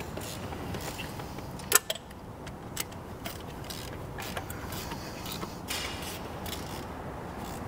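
Hand ratchet wrench clicking and metal tools clinking as bolts are done up on an engine, with a couple of sharper clicks about two seconds in.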